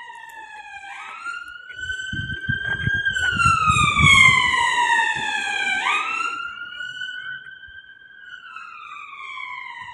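Emergency vehicle siren wailing in slow rising and falling sweeps, about five seconds per cycle. It grows louder to a peak about four seconds in and then fades, with a low rumble while it is loudest.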